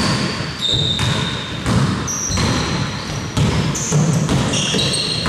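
Basketball bouncing on an indoor court, the bounces coming roughly once or twice a second, with short high squeaks of players' shoes on the floor.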